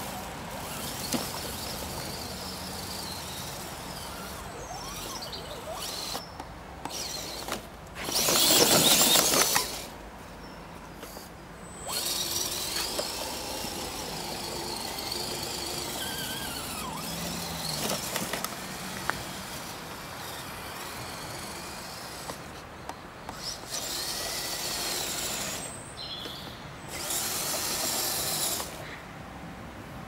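RC 6x6 Mercedes truck's motor and drivetrain whining in spurts as it is driven, the whine rising and falling in pitch with the throttle. The loudest spurt is a harsh rush of noise about eight seconds in; there are longer spurts in the middle and near the end.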